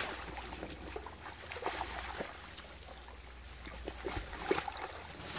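Water splashing and sloshing in a shallow muddy puddle as a person flops and scrambles about in it, with scattered short splashes, the sharpest about four and a half seconds in.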